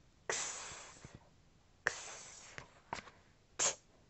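A woman voicing the phonogram sound for the letter x, a voiceless hissed 'ks', twice, each lasting under a second. Near the end comes a short, sharp 't' for the letter t.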